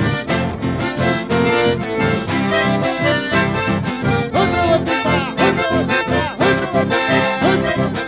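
Live dance music led by two button accordions playing a lively tune together, over guitar and a steady, even beat.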